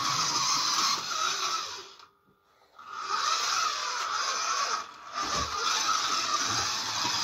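Scalextric slot car running on its plastic track, a steady whirring hiss of the small electric motor and the guide braids on the rails. It cuts out for under a second about two seconds in and dips briefly again around five seconds.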